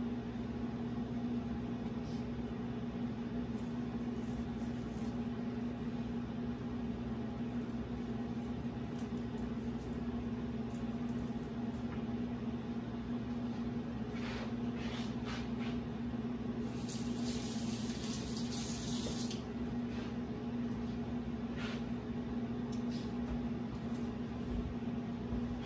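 Steady hum of a kitchen appliance with one strong low tone, under faint clicks and rustles of garlic cloves being peeled by hand, and a brief hiss about seventeen seconds in.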